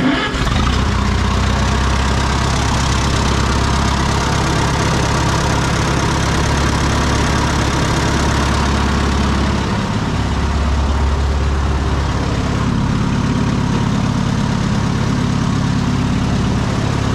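Oliver tractor gasoline engine catching at once and then running steadily, with its fuel already shut off so that it runs on what is left in the carburetor. About ten seconds in, the low engine sound grows stronger for a couple of seconds.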